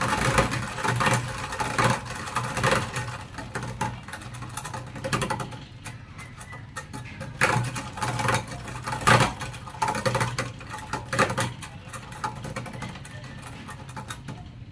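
Motorcycle engine running with a steady low hum, under many irregular clicks and knocks that come louder at the start and again in the middle.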